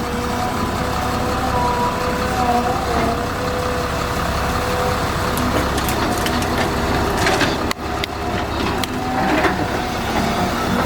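Caterpillar 323 excavator working, its diesel engine running steadily with a held hydraulic whine over it. A few sharp knocks and scrapes come in the second half.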